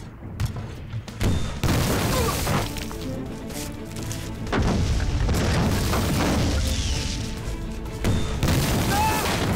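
Dramatic film score with heavy booms and sharp impacts over it, from field guns firing.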